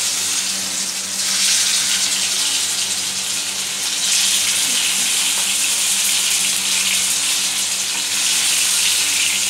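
Besan (gram-flour) koftas frying in hot oil: a steady, loud sizzle of bubbling oil.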